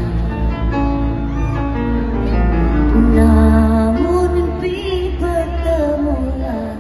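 Female rock singer singing live with her band, holding long notes over the instruments, heard from the audience.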